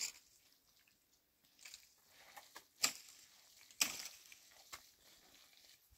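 Mud mortar handled by hand: a few short, sharp scrapes and slaps as lumps are scooped from a metal wheelbarrow and pressed onto a mud wall, the loudest about three and four seconds in.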